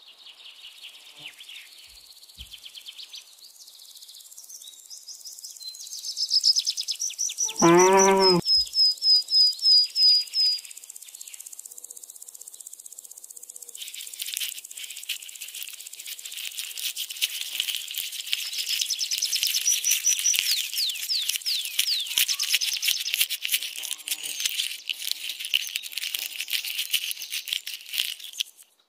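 Small birds chirping: a run of quick, evenly repeated high chirps, one lower call about eight seconds in, then dense, continuous twittering from many birds from about halfway through.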